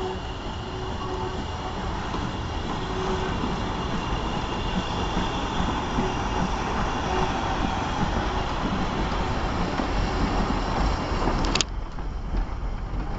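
LMS Ivatt Class 4 2-6-0 steam locomotive 43106 and its goods wagons rolling slowly past close by, with a steady rumble of running gear and wheels on the track that grows louder as the engine comes level. A sharp click and a sudden drop in level come near the end.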